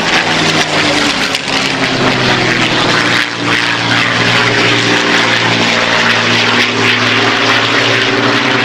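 Propeller fighter's Rolls-Royce Merlin V12 engine in flight, a loud, continuous drone with a noisy edge. Its pitch drops in the first second or so and then holds steady.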